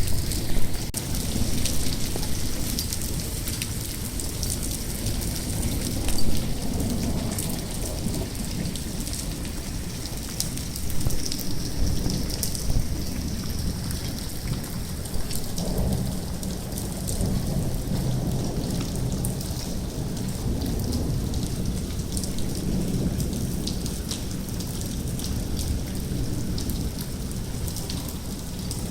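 Hailstorm with heavy rain: a dense patter of many small hailstone and rain impacts on surfaces over a steady low rumble, with a few louder swells.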